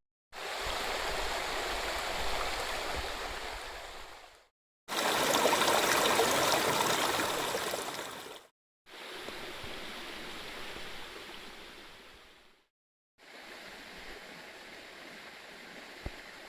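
Flowing stream water rushing steadily, heard in four stretches, each broken off by a sudden short silence; the second stretch is the loudest and the last the quietest.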